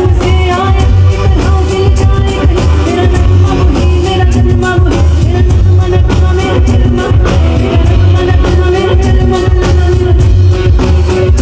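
Loud music with a singer over a heavy, steady bass beat.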